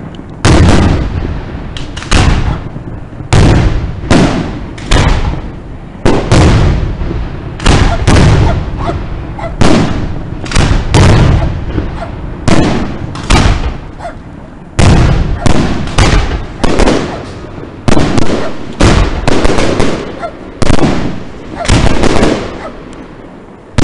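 Aerial fireworks display: shells bursting overhead in a rapid string of loud bangs, one to two a second, each bang trailing off before the next.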